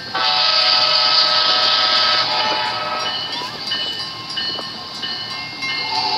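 Locomotive horn sounding, a chord of several tones that starts suddenly and holds for about two seconds before dropping away, with train noise continuing after it.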